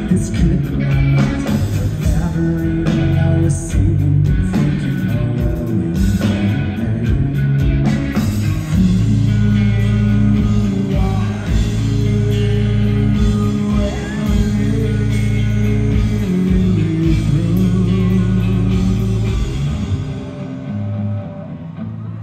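Live rock band playing amplified, with a male lead vocal over bass, guitar and drums. The music grows quieter near the end.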